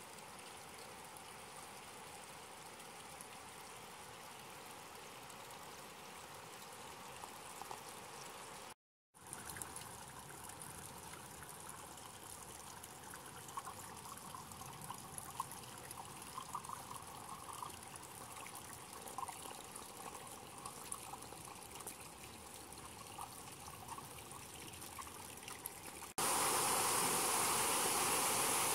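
Hot spring water trickling and flowing gently in stone-lined soaking pools. About 26 s in, it changes abruptly to the much louder, steady rush of water falling over rocks.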